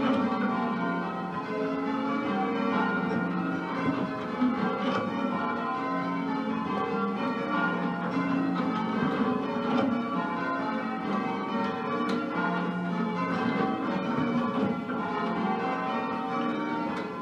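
Change ringing on a ring of ten full-circle church bells, a 13 cwt ring in F cast by Mears and Stainbank, Gillett and Johnston and Whitechapel. The bells strike one after another in a continuous, overlapping sequence.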